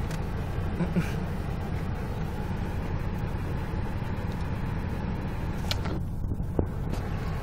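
Car wash rinse spray hitting the car's side window and body, heard from inside the cabin as a steady rushing over a constant low rumble.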